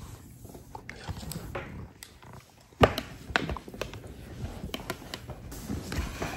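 Small plastic forks and spoons knocking and scraping against a bowl as toddlers eat, in scattered sharp clacks. The loudest comes about three seconds in, with a cluster following.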